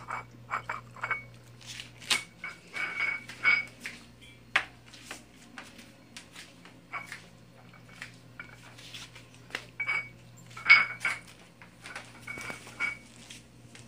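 Irregular light clinks and taps against a pet's food dish, several ringing briefly at one high pitch, with one louder clink about eleven seconds in.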